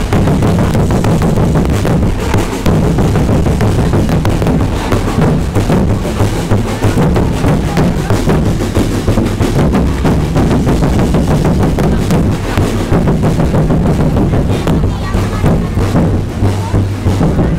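Street drum corps of marching bass drums and snare-type drums playing a fast, continuous beat.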